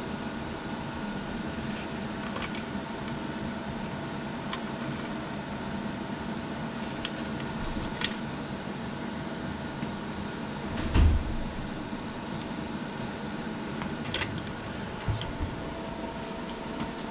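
Steady background hum with scattered metallic clicks and clinks of a broken bicycle chain being pulled off the bike's sprockets, and a dull thump about eleven seconds in.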